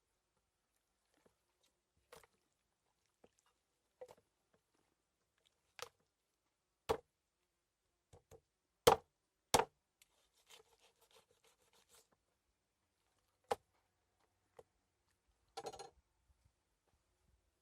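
A series of separate sharp knocks and taps, a second or more apart, the loudest two close together about halfway through, with a short rough scraping clatter near the end.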